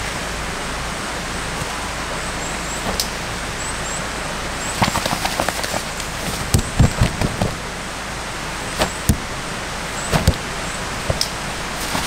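Steady rushing of a valley stream, with scattered knocks and clicks in the second half and a few faint, short, high chirps.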